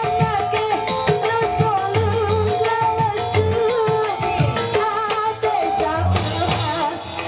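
Live dangdut band music with women singing a melody into microphones over a steady drum beat.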